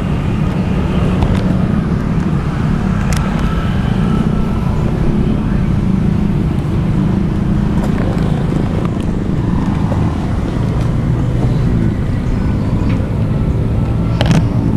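Steady road traffic rumble, with an occasional faint click.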